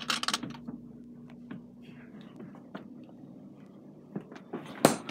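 Refrigerator's low hum with clicks and knocks of things being set on its shelves. The hum stops about two seconds in, followed by faint handling knocks and one sharp knock near the end.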